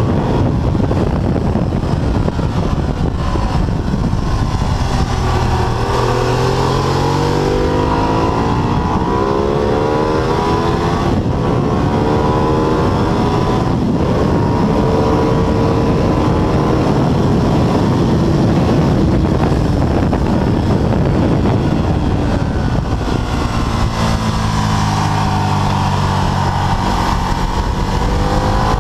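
Ducati 848's L-twin engine at full race pace, heard from onboard: its pitch climbs through the gears, holds high down the straight, then falls away in steps as the rider brakes and downshifts for the corners, with wind rushing over the bike.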